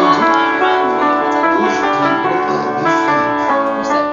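Background piano music with sustained chords.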